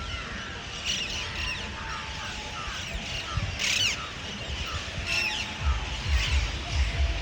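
A roosting flock of parrots and crows calling together: a steady run of short, falling chirps with sharper squawks standing out, the loudest about three and a half seconds in. A low buffeting rumble on the microphone comes in near the end.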